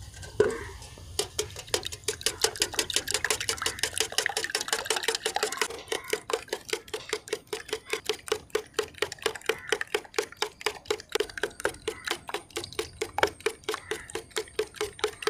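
Wire balloon whisk beating raw eggs in a stainless steel bowl, the wires clicking against the bowl's side in a fast, steady rhythm of several strokes a second, starting about a second in.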